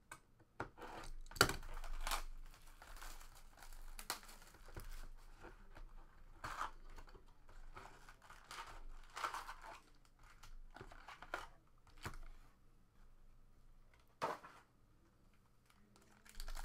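A cardboard trading-card box being cut open with a box cutter, its wrapper torn off, then the lid opened and the foil packs inside handled: a string of short tearing, crinkling and scraping noises with a few sharp clicks.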